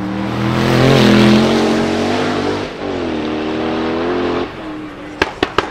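Noble M600 Speedster's twin-turbo 4.4-litre V8 accelerating hard away, with a short break for a gear change about three seconds in. Then the throttle lifts and three sharp exhaust bangs crack out in quick succession near the end, the pops that the uploader puts down to an anti-lag system.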